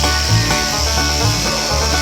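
Background music: an upbeat banjo-led bluegrass tune with a bouncing bass line.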